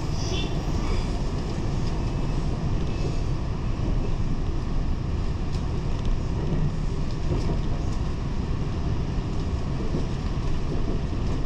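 A passenger train in motion: a steady rumble of wheels running on the track, with a few faint ticks.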